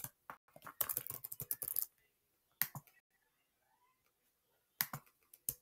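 Typing on a computer keyboard: a quick run of keystrokes over the first two seconds, then a few separate clicks.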